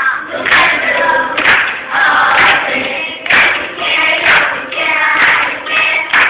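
A children's community choir, with adults joining in, singing a song together as a group, with hand claps on the beat about once a second.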